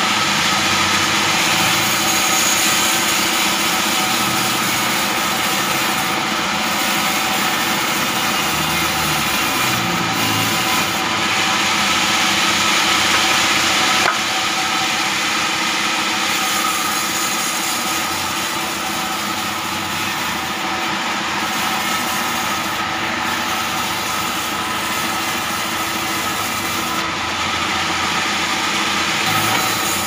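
Band sawmill running steadily, its blade cutting very hard acacia wood. The cutting sound stops abruptly about halfway through, and the saw then runs on a little more quietly.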